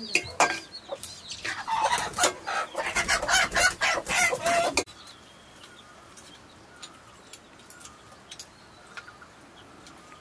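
Chickens clucking close by, over the clicking and scraping of a metal spatula stirring greens in an iron wok. About five seconds in, the sound drops away suddenly, leaving only faint chirps.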